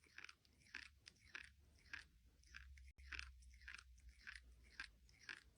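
Faint crunchy chewing: a steady run of short crunches, about two to three a second.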